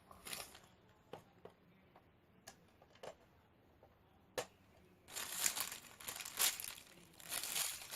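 A few light clicks of small toy pieces being handled, then a crinkling rustle in two stretches from about five seconds in.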